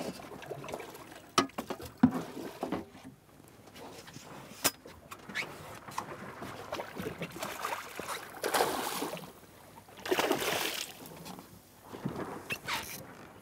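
Hooked tripletail splashing and thrashing at the surface beside a boat, with water sloshing against the hull, two louder splashes in the second half and a few sharp knocks.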